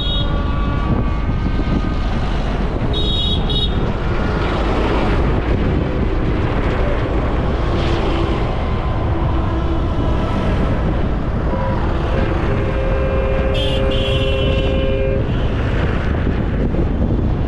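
Steady rumble of engines and tyres as a convoy of farm tractors rolls past, with horns sounding: a short high toot about three seconds in and a longer two-tone horn blast from about twelve and a half to fifteen seconds in.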